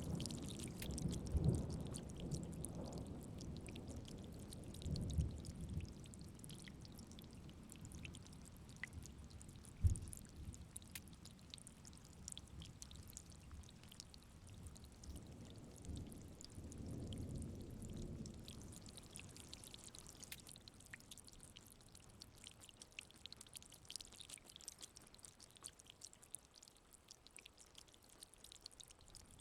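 Faint steady rain with scattered drips, under low rolls of thunder that die away over the first few seconds and swell briefly again a little past the middle. There is a single low thump about a third of the way in.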